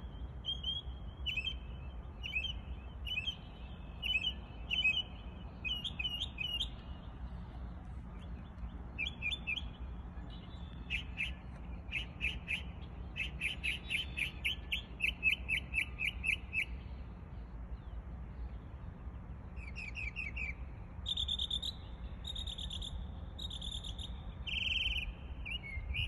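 Northern mockingbird singing a run of varied, mimicked phrases, each repeated several times before it switches to a new one, with rapid runs of notes in the middle and short pauses about eight and eighteen seconds in. A steady low rumble runs underneath.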